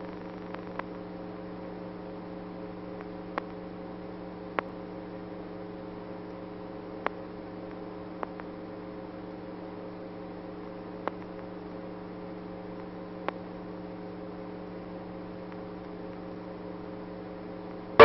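Steady electrical hum of several held pitches with about seven scattered clicks: the background noise of an old newsreel film's sound track, with no music or speech on it.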